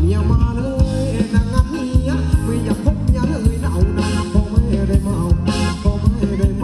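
Live band playing upbeat Thai ramwong dance music, with a quick, steady drum beat, bass and a melody line.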